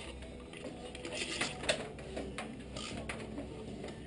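Irregular metallic clicks and clinks from tools and parts being handled while an engine and transmission are lined up, with a cluster of sharper clicks about a second and a half in.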